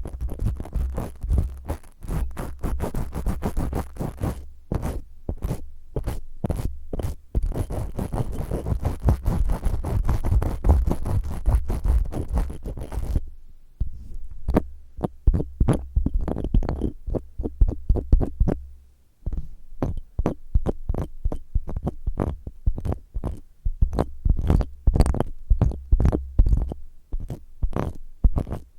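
Spiky silicone ear-cleaning tool rubbed and scratched roughly against an ear microphone: fast, dense scratching strokes over a low rumble. The rumble drops away for a few seconds around the middle while the scratching goes on.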